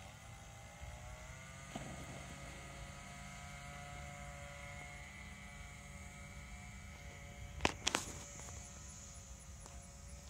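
Faint steady mechanical hum made of several pitched tones, rising slightly in pitch over the first two seconds and then holding level. Two sharp clicks close together about three-quarters of the way through.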